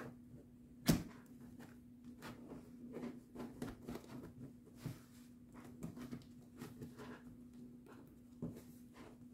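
Handling sounds of an embroidery hoop being fitted onto cross-stitch fabric: a sharp knock about a second in, then a run of small clicks and rustles, and another knock near the end. A faint steady hum runs underneath.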